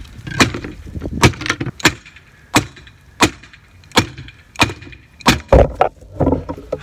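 About eight sharp strikes, roughly two-thirds of a second apart, knocking a stuck Gorilla cart wheel along its axle, then a heavier thump about five and a half seconds in as the wheel comes free. The wheel is stuck because its bearing has rusted onto the axle shaft.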